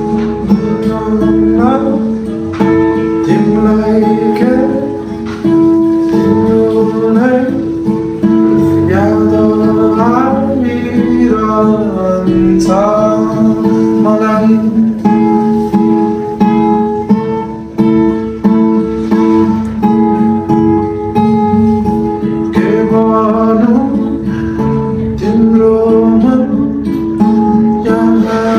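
A man singing while accompanying himself on a small acoustic guitar fitted with a capo.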